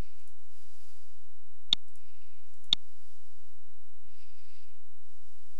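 Two sharp computer mouse clicks about a second apart, over a faint low hum.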